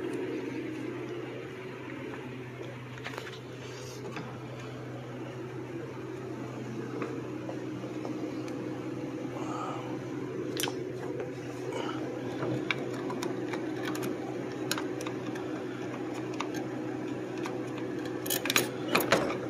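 Light, scattered clicks and taps of a car door handle's metal and plastic lock parts being worked on while the lock spring is pried off, with a quick cluster of sharper clicks near the end. A steady low hum runs underneath.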